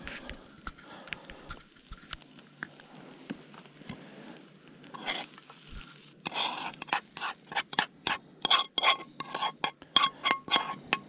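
Metal spoon scraping fried rice out of a frying pan and tapping it onto a plastic plate. Soft scrapes at first, then from about six seconds in a quick run of clinks and scrapes, with the pan ringing briefly on some strokes.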